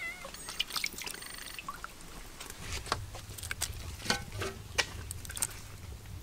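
Water pouring and dripping into a wok holding raw pork belly slabs, with scattered small splashes and light clicks.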